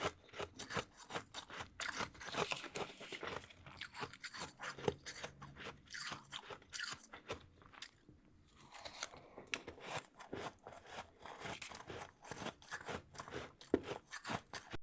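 Close-miked crunching and chewing of powdery freezer frost: many quick, crisp crunches one after another, with a short lull a little past halfway.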